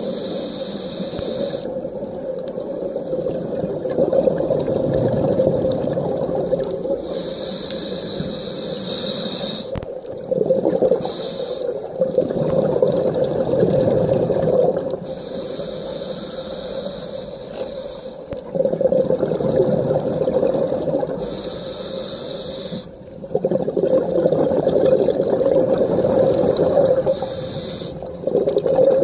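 Scuba diver breathing through a regulator, heard underwater. A hissing inhale comes roughly every six to seven seconds, and between the inhales the exhaled air bubbles out with a rushing, gurgling sound.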